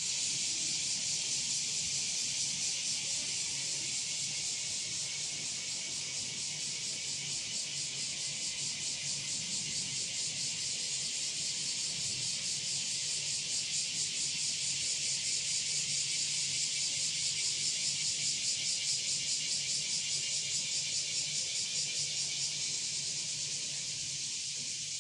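Cicadas singing: a steady, high-pitched buzz with a fast pulsing, swelling a little past the middle and easing slightly near the end.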